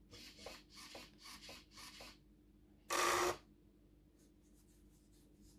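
Hands handling the light kit's thin wires and plastic plugs: a run of soft rustles and scrapes, a louder half-second rustle about three seconds in, then a few faint light ticks. A faint steady electrical hum sits underneath.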